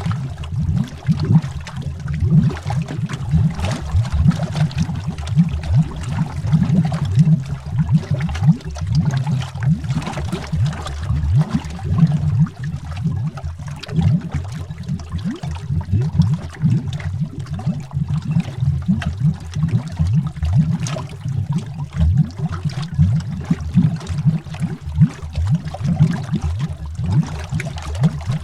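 Underwater bubbling: a dense, continuous stream of low, rapid bubble pops and gurgles with no pauses.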